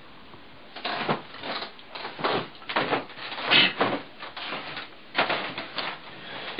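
Irregular rustling, knocks and scrapes of a person moving about and settling at a table, starting about a second in and going on in uneven bursts several times a second.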